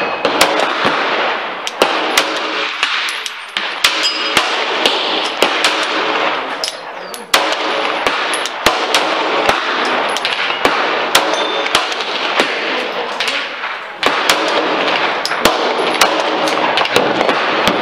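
Glock 17 9mm pistol firing a long string of shots at steel targets, the shots irregularly spaced and often less than a second apart, over a steady loud rushing background noise.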